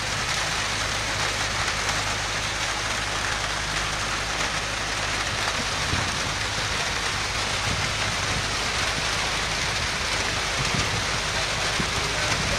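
Steady hiss of rain falling, with a low steady hum underneath.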